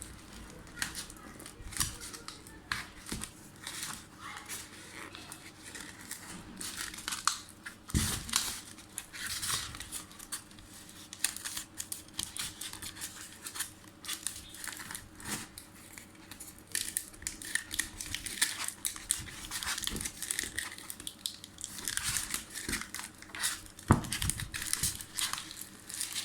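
Packaging crinkling and tearing as a parcel is opened by hand, in irregular rustles and crackles, with a couple of dull knocks about a third of the way in and near the end.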